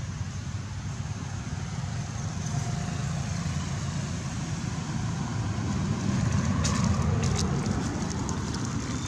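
Steady low rumble with a hiss, with a short cluster of clicks about seven seconds in.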